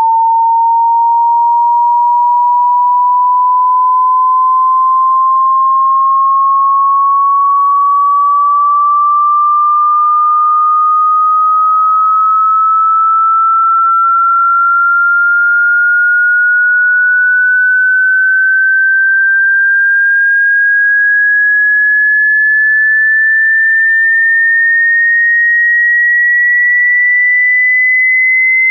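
Pure sine-wave test tone gliding slowly and evenly upward in pitch at constant loudness, from about 900 Hz to about 2,000 Hz here. It is one stretch of a hearing-test sweep that runs from 20 Hz to 20,000 Hz.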